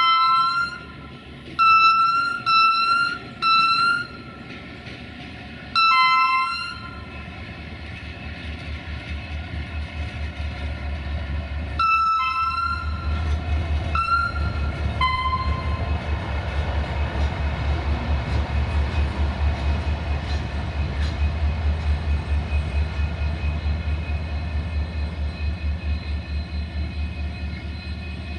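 A CFR class 64 'GM' diesel locomotive sounds its two-tone horn in about eight short blasts, three of them in quick succession about two seconds in, with the last few around 12–15 s. Its diesel engine then runs under power with a fast pulsing beat, growing louder as it draws near and easing slightly near the end.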